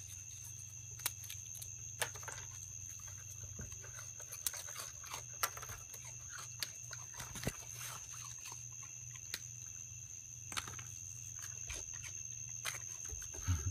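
Raccoons eating crackers and moving on a wooden deck: irregular small clicks and crunches, over a steady low hum and a steady high tone.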